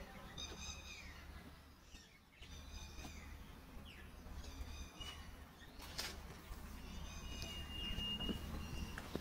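A bird calling repeatedly outdoors in short, bright calls every one to two seconds, with one longer steady whistled note near the end, over a low steady rumble.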